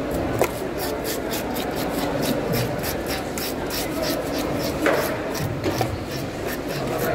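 Hand-held fish scaler scraping the scales off a whole fish in rapid, rhythmic strokes, with a couple of sharper knocks.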